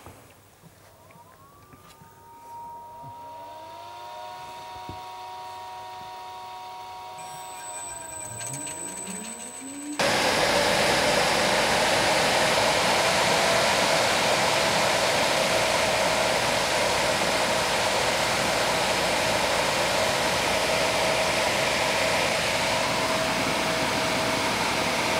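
Electric motor driving a small centrifugal fan through a toothed timing belt, started from a frequency inverter: a rising whine as the drive ramps up. About ten seconds in the sound jumps suddenly louder to a steady rush of air with a steady hum as the fan runs at speed.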